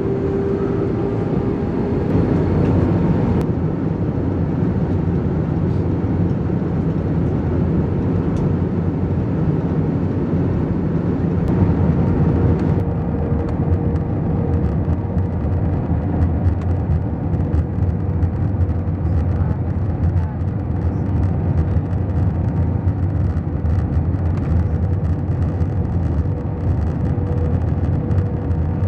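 Steady cabin noise of an Airbus A320 in flight on its descent: a low rumble and rushing airflow, with a steady whine from its IAE V2527 engines. The higher hiss drops off abruptly twice, a few seconds in and again near the middle.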